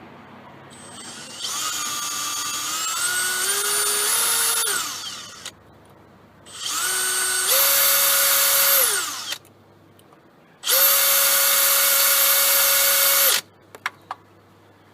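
Cordless drill with a small bit drilling out a broken steel stud, in three runs. The first run's whine rises in pitch in steps as the trigger is squeezed in. The last two hold a steady high pitch, and each winds down when released. A couple of clicks come near the end. The owner later judges the bits blunt and the drill too slow for the job.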